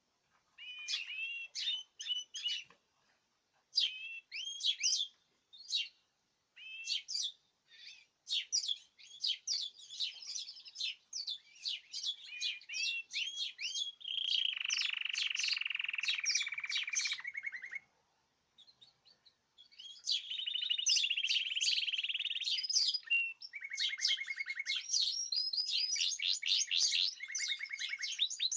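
Several caged songbirds singing together: quick chirps and rapid trills, with long buzzing trills in the middle and again later, and a brief lull about two-thirds of the way through.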